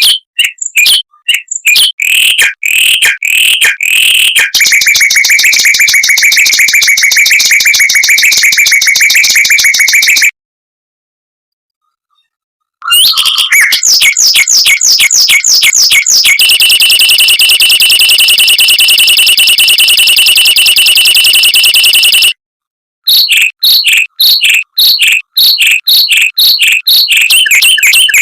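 Mockingbird singing loud, fast phrases: a run of separate chirps, then a long rapid trill. After a pause of about two and a half seconds it sings rising-and-falling notes, another long, very fast trill, and then quick repeated notes.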